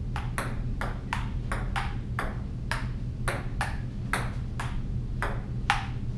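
Table-tennis rally: a ping-pong ball clicking back and forth off the paddles and the table, about two to three clicks a second, with the loudest click near the end as the point finishes.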